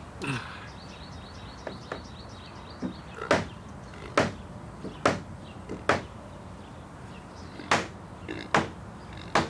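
A hammer striking the wooden frame of a prehung exterior door: about seven sharp knocks, roughly a second apart. The blows are meant to knock the tight top corner over and close the gap where daylight shows through.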